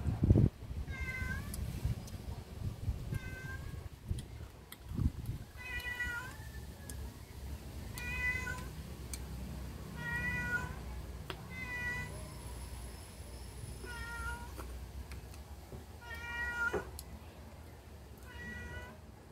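A cat meowing over and over: short high meows about every two seconds, nine in all. Under them are close chewing and eating sounds, with a thump right at the start.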